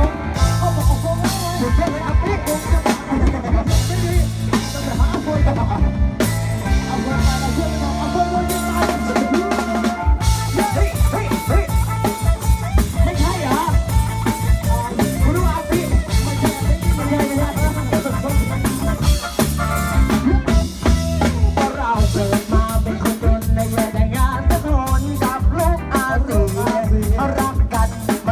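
Live Thai band music from a rot hae, a truck-mounted mobile band sound system: drum kit and bass playing a steady groove. The drumming gets busier, with dense rapid hits, from about twenty seconds in.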